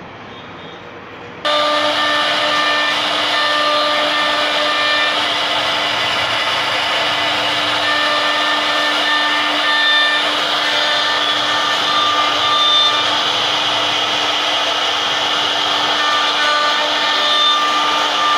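Spindle of a 1325 CNC router carving a design into a wooden panel: a loud, steady machine whine under a low hum, with whistling tones that come and go as the bit cuts. It comes in suddenly about a second and a half in.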